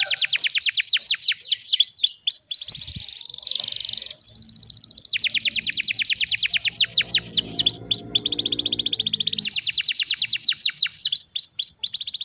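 Domestic canary singing dense rapid-fire trills: long series of quick, high, downward-sweeping notes, in phrases separated by short breaks.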